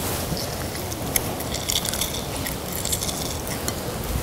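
Wet squishing of raw chicken breast pieces being kneaded by hand in a mustard and lemon-juice marinade in a glass bowl, with small irregular clicks and crackles.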